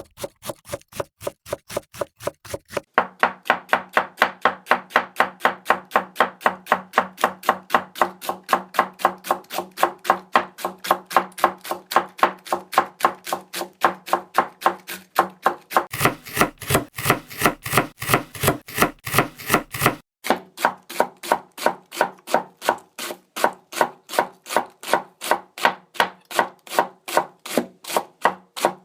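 Japanese kitchen knife (houchou) chopping ingredients on a cutting board: fast, even strokes, each a sharp knock, kept up without pause except for a brief break about twenty seconds in.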